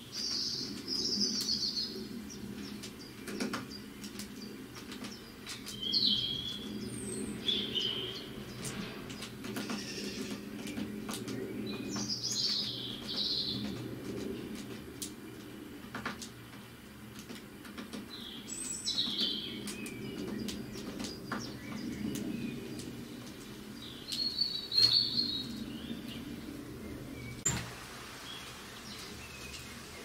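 Small birds chirping in short bursts, several times, over a low steady background hum, with a few light sharp taps.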